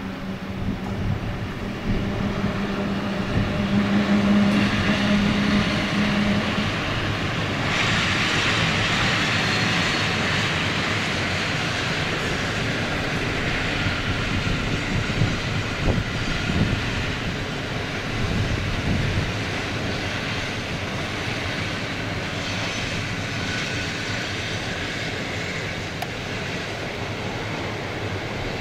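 Intercity passenger train of coaches rolling past, with steady wheel-on-rail noise. A low steady hum is heard for the first few seconds, and the rolling noise grows louder about eight seconds in.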